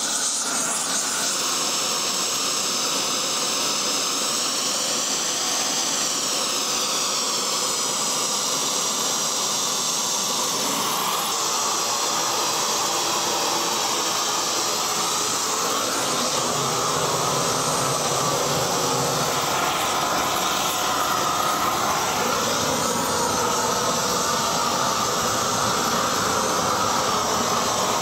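Hand-held propane torch, fed by a hose from a gas cylinder, burning with a steady hiss as it is used to flame-char timber posts; the sound grows a little louder about halfway through.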